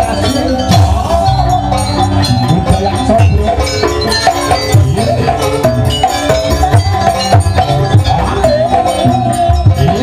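Live Javanese jaranan buto ensemble playing: drums and metal percussion keep up a steady rhythm under a high, wavering melody line.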